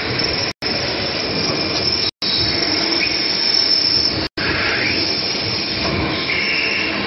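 Horizontal automatic metal lathe running: a loud, steady machine noise of drive and cutting. The sound cuts out completely for a split second three times.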